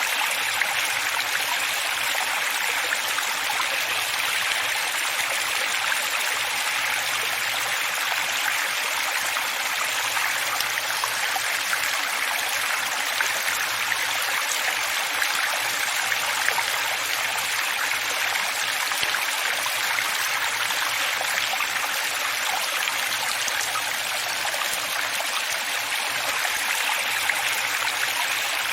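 Running water flowing steadily, a continuous rushing hiss with small splashes through it and little low rumble.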